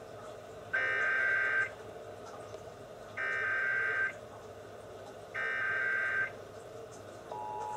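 Emergency Alert System SAME header from a radio: three bursts of warbling digital data tones, each about a second long. Near the end the steady two-tone EAS attention signal starts, announcing another Required Monthly Test.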